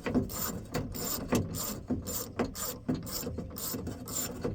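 Hand ratchet wrench clicking in quick repeated strokes, about two or three a second, as it backs a bolt out of the window track inside a truck door.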